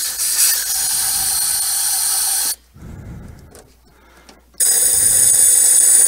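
Compressed air from a portable 50 PSI air tank hissing through the ports of a furnace condensate trap in two blasts: one lasting about two and a half seconds, then a second starting about 4.6 seconds in. The air is blowing out a blockage in the trap.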